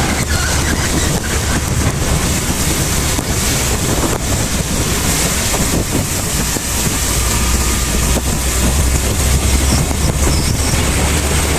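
Heavy rain pouring down: a steady, loud hiss with a deep rumble underneath.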